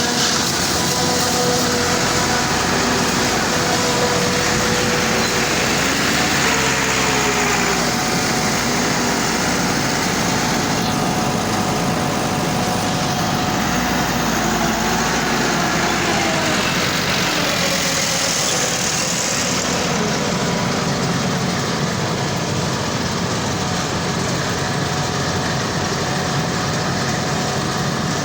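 Corn combine harvester running steadily, a dense mechanical din with steady whining tones that slide up and down in pitch a few times.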